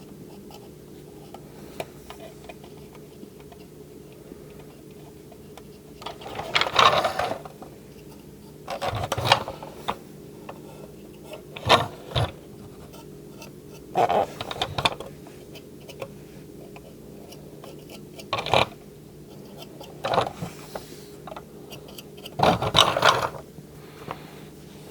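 Irregular brief scrapes and knocks of a small paint brush and plastic toy parts being handled on a work surface, about seven times, over a steady low electrical hum.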